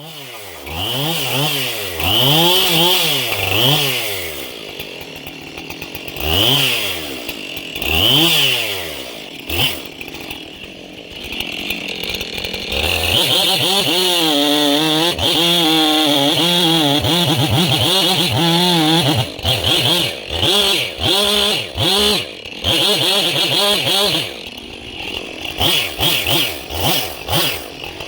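Chainsaw engine revving up and dropping back several times. About 13 s in it settles into a long, steady run under load as it cuts, its pitch wavering. Near the end it breaks into short on-off bursts.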